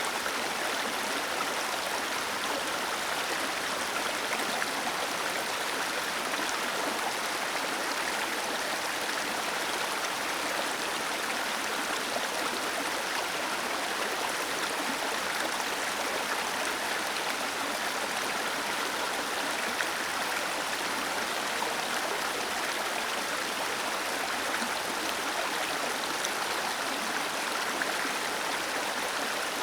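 Water pouring steadily over a small waterfall, a constant even rush of falling and splashing water.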